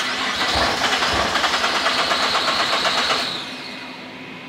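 2009 Nissan GT-R's twin-turbo V6 cranking on the starter for about three seconds with an even, fast chug, then stopping without catching: the fuel tank has run dry.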